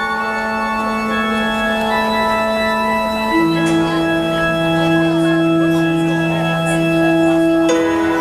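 Live concert music of slow, long-held organ-like chords, heard through the arena's sound system; the chord changes about three seconds in and again near the end.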